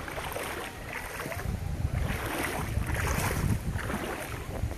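Wind buffeting the microphone in uneven gusts, heavier from about a second and a half in, over the steady wash of moving river water.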